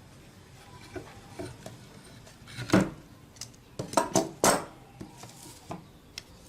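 Hard objects being handled and set down: a series of irregular clinks and knocks, loudest and most frequent from about two and a half to four and a half seconds in.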